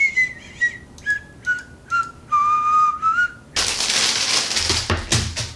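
A man whistling idly: a run of short notes stepping down in pitch, ending on a longer held low note that turns up at the end. About three and a half seconds in, a loud rushing noise lasts about a second and a half.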